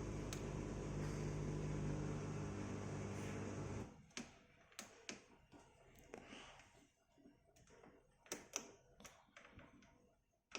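Beko dishwasher's pump humming steadily while the cancelled program winds down, cutting off suddenly about four seconds in. Then a scattered series of light clicks and taps, fingers working the touch control panel.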